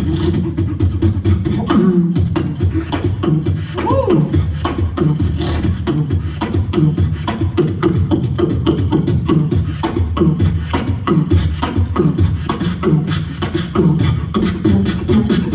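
Human beatboxing into a stage microphone: a fast, driving rhythm of vocal clicks and percussive hits over a low bass line. A brief sung pitch swoop comes about four seconds in.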